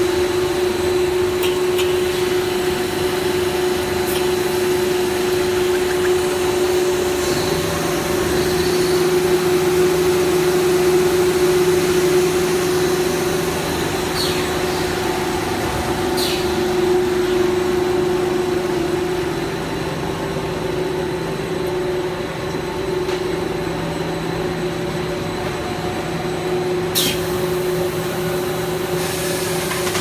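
PVC buckle plate extrusion line running: a loud, steady machine hum and hiss with a constant tone. A second, lower hum joins about seven seconds in, and a few faint clicks sound now and then.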